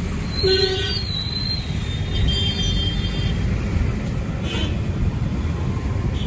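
Road and traffic noise heard from an open rickshaw in motion: a steady low rumble, with a brief high squeal about half a second in.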